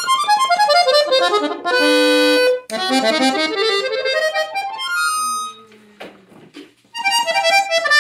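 Diatonic button accordion from Gabbanelli being played: quick runs of single notes up and down the keyboard, a chord held for about a second, a short quieter gap about six seconds in, then more runs.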